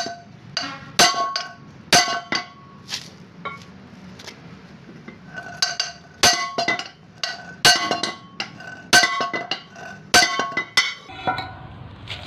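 A large hammer strikes the steel yoke of a propeller shaft to drive out its cross (universal) joint. The blows are sharp and ringing, coming about once a second with a short pause about four seconds in.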